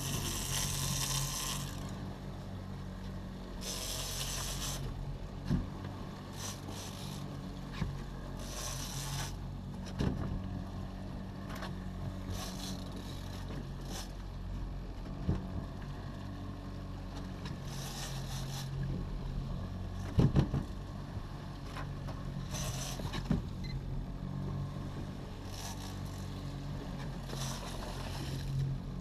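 Small boat's outboard motor running steadily at low speed, with choppy sea splashing against the hull in washes every few seconds. Occasional sharp knocks sound on the boat, the loudest about twenty seconds in.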